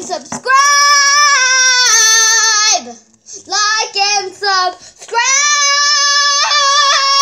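A young girl singing loudly in a high voice. She holds two long notes, each more than two seconds, with a few short sung syllables between them.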